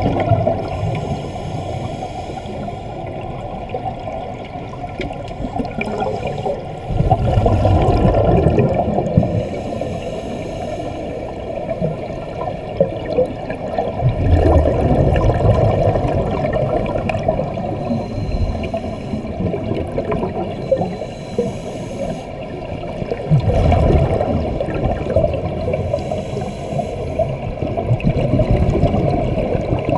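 Scuba divers breathing through regulators underwater: a rush of exhaled bubbles about every eight seconds over a steady underwater rumble and hiss.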